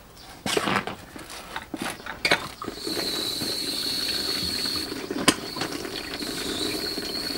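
Rustling of the fabric tank and hose being handled for the first couple of seconds, then, about three seconds in, water from a garden hose starts running steadily into the NEMO Helio Pressure Shower's tank, with a single sharp click near the middle.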